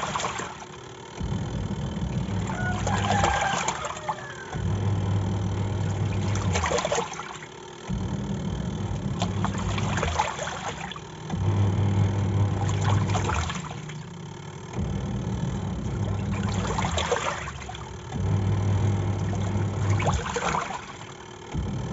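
Semi-automatic top-loading washing machine in its wash cycle: the motor hums for about three seconds, pauses briefly, then starts again the other way. The load of clothes and water sloshes in the tub at each reversal.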